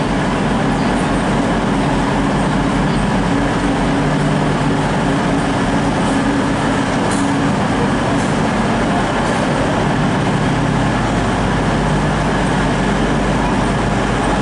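Diesel engines of a Class 150 Sprinter multiple unit idling, a steady drone that does not change.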